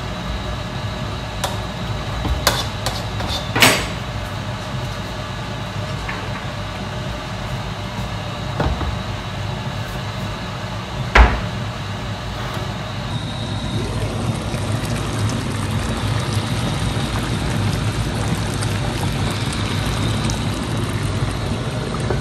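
A frying pan of dried beef and pumpkin in water sizzling and simmering on the hob. A few light clinks of a utensil against the pan come in the first few seconds, and a sharp clink about eleven seconds in as a glass lid is set on the pan; the simmering then goes on steadily under the lid.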